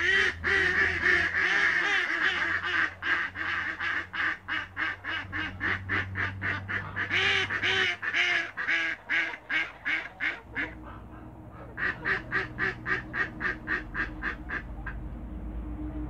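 Domestic geese, Toulouse geese among them, honking in rapid runs of short calls, several a second. There is a brief pause about ten and a half seconds in, then a second, quicker run.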